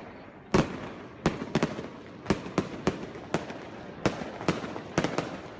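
Aerial fireworks going off: about a dozen sharp bangs from shells bursting, at uneven intervals, each trailing a short echo. The first bang, about half a second in, is the loudest.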